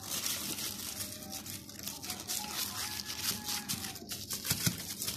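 Plastic bag crinkling and rustling as a hand presses and smooths it flat over soft cheese in a mould: a steady run of small crackles.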